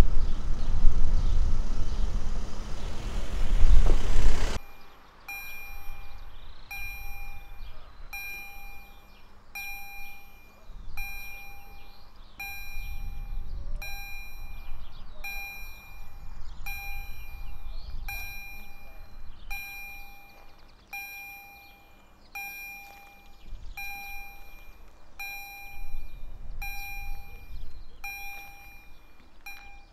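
A passing train's loud noise, which stops abruptly about four and a half seconds in. Then a level crossing's warning bell dings steadily, about once a second.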